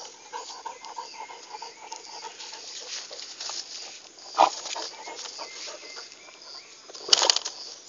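Hunting dog whining in quick repeated cries as it digs into a burrow, with a sharper cry about four seconds in and a louder burst of noise near the end.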